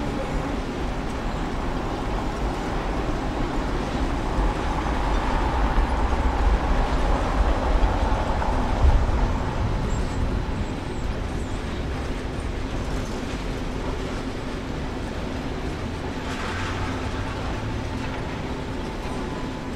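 Field-recorded ambience of a moving vehicle: a steady low rumble that swells to its loudest about nine seconds in, then settles back to an even level.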